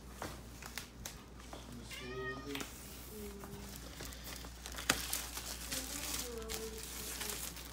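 A domestic cat meowing, with one clear meow about two seconds in. A single sharp click about five seconds in.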